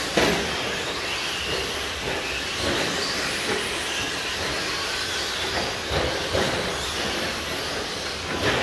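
Radio-controlled short course trucks racing on a dirt track: several motors whining up and down in pitch over a steady hiss of tires and dirt, with a few knocks from landings or contact, the loudest just after the start and two close together about six seconds in.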